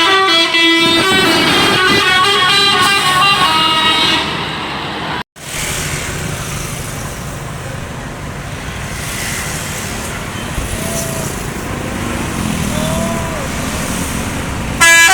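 Basuri 'telolet' bus horn playing a quick multi-note melody for about four seconds, then cut off. After a short gap comes street noise of traffic and people, and the horn melody starts again right at the end.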